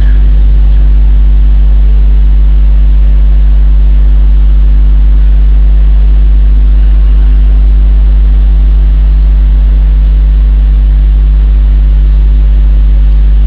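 Loud, unchanging electrical hum: a deep buzz with a few steady higher tones above it, typical of mains hum in a sound system left running with no one at the microphone.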